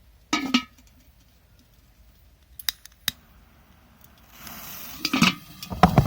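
A 'mouse' firecracker going off inside a metal kettle. A short metallic clatter comes near the start and two sharp clicks follow. From about four and a half seconds there is a steady hiss with loud rattling clanks from the kettle.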